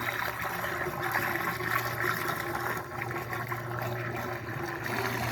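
Water trickling and sloshing as a duck pond drains, over a steady low hum.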